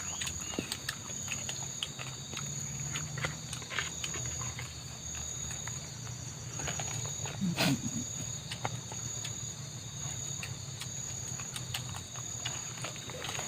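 Steady high-pitched chorus of insects, pulsing evenly throughout, with scattered small clicks and one louder knock about halfway through.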